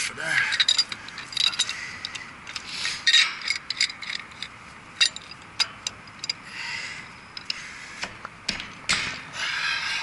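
Pipe wrench working a threaded fitting on steel piping: irregular sharp metallic clicks and knocks, with short bouts of scraping.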